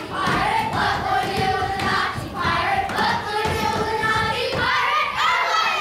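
A group of children singing together in unison, with held notes and short breaks. Low thuds of feet on the stage run underneath.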